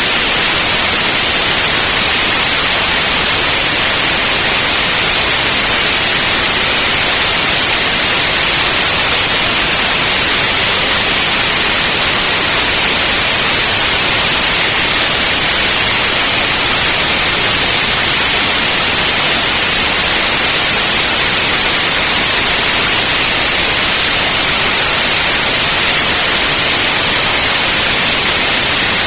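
Loud, steady white noise: an even, unchanging hiss with no breaks or events.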